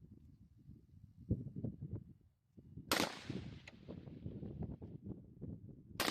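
Two gunshots from a 9mm pistol-caliber carbine, about three seconds apart, each sharp crack trailing off in echo. A steady low rumble of wind on the microphone runs under them.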